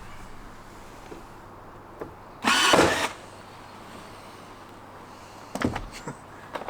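A power drill running in one short burst of under a second, followed by a few light knocks near the end.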